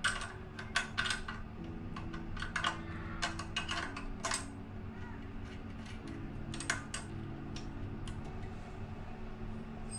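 Irregular light metallic clicks and clinks of small parts being handled and worked on a Predator 212's exposed rocker arms and valve-cover area, over quiet background music.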